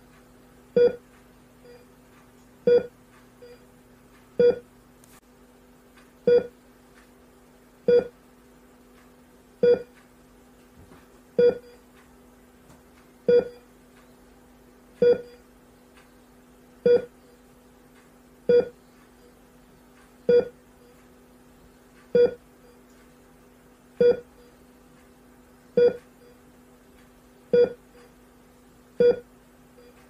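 Hospital heart rate monitor beeping steadily, one short beep about every second and three quarters, each beep marking a detected heartbeat, over a steady low hum.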